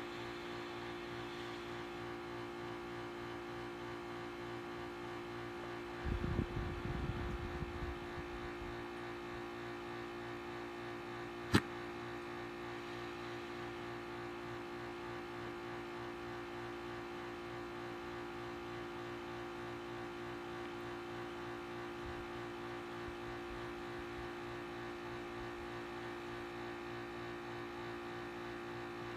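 A steady mechanical hum with a few fixed tones runs throughout. A brief low rumble comes about six seconds in, and one sharp click comes about eleven and a half seconds in.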